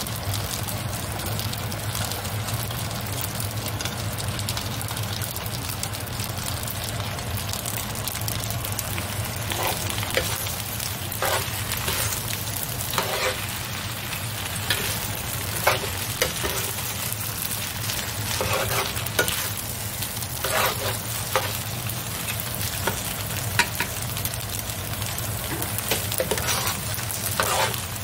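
Mung bean glass noodles with egg and vegetables sizzling steadily in a square copper-coloured pan. From about ten seconds in, a metal spoon scrapes and turns the food in irregular strokes, roughly one a second.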